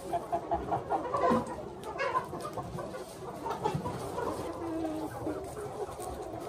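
A flock of young Minh Du chickens clucking and calling while they feed, with quick runs of short repeated notes near the start and one longer held call about five seconds in. Scattered light clicks run through it.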